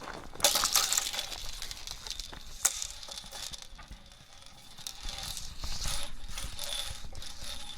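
Hula hoop being hulaed, its hoop rattling and clicking as it spins. There is a dense burst of rattling about half a second in, a sharp click near the three-second mark, and a lower, steadier rustle in the second half.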